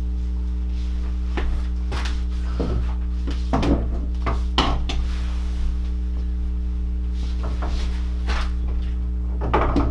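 Scattered light knocks and clinks, about eight in all, from work on the plumbing at the floor under the sink. A steady low electrical hum runs beneath them.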